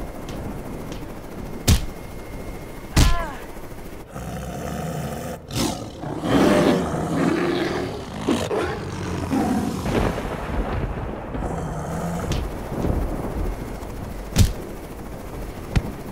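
Action-film sound effects: four sharp, loud hits like gunshots or heavy blows, the second followed by a short falling whistle, and in the middle a dense stretch of growling creature roars.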